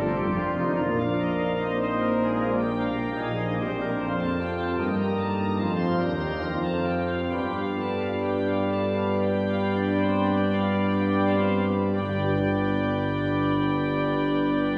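Pipe organ playing sustained chords over deep pedal bass notes; the lowest bass drops out about five seconds in and comes back about twelve seconds in.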